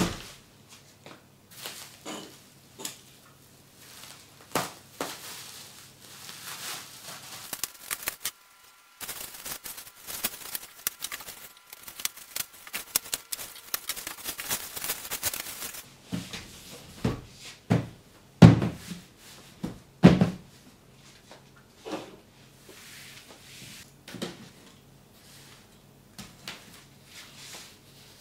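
Bubble wrap rustling and crinkling as it is unwrapped from a cardboard box, with a dense stretch of crinkling in the middle. After it come several dull thumps as the cardboard box is handled, the loudest sounds here, and then lighter handling noises.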